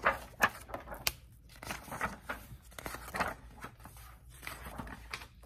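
Paper pages and the cover of a hardcover picture book being handled and turned, a run of irregular papery scrapes, rustles and light taps.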